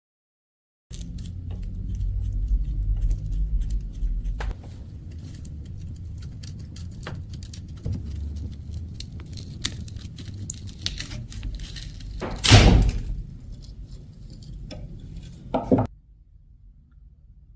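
Workshop handling noise: scattered clicks and taps over a low rumble, a loud knock about twelve seconds in and a thunk near the end.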